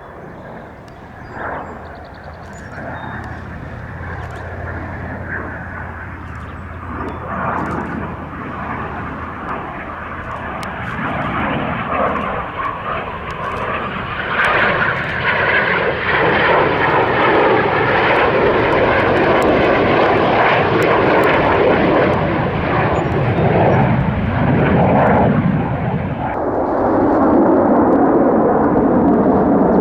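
Airplane engine noise growing steadily louder over about fifteen seconds as the aircraft approaches, then staying loud and even as it passes close.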